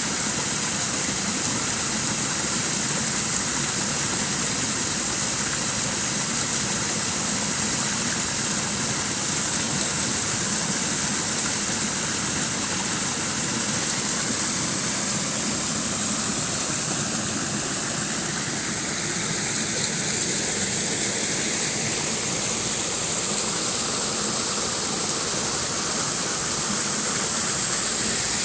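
Shallow water babbling and trickling into a pond, a steady even rush with no breaks.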